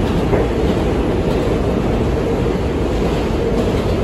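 R142 subway car running between stations, heard from inside the car: a loud, steady, low rumble of wheels on the rails.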